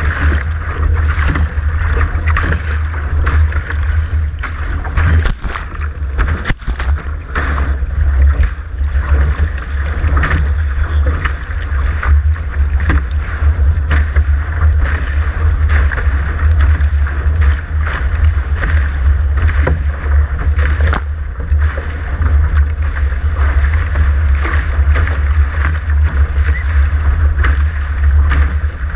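Wind buffeting the microphone of a camera mounted on a Dart catamaran's hull, over the rush and splash of water along the hulls as the boat sails fast. A few sharp knocks come about five to seven seconds in.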